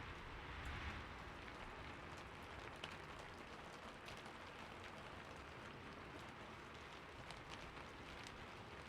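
Steady rain falling, an even hiss with scattered sharp ticks of individual drops and a brief swell about a second in.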